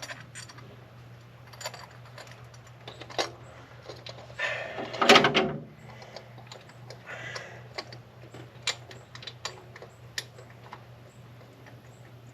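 Small metallic clicks and taps of a thermostat housing bolt and gasket being handled and started by hand on the engine, with a brief louder noise about five seconds in. A steady low hum runs underneath.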